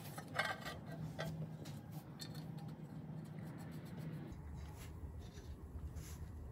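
Faint metallic clicks and handling noise of bolts being threaded in by hand through a flexplate into the crankshaft flange. A low steady hum comes in about four seconds in.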